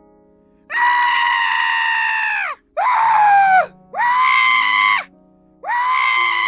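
Four long, high screams in a row, each about one to two seconds long, the pitch sagging as each one ends; they stand in for trees screaming. Soft background music plays beneath.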